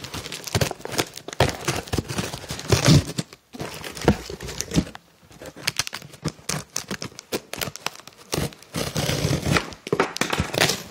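A cardboard shipping box being cut and torn open by hand: irregular scraping, tearing and crinkling of cardboard, with a quieter pause about halfway through.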